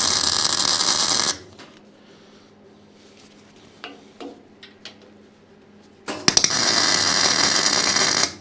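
Two tack welds with a MIG welder on the 6 mm steel plates of a kit welding table. The arc crackles steadily for about a second and a half at the start, then again for about two seconds near the end, with a few light clicks in between.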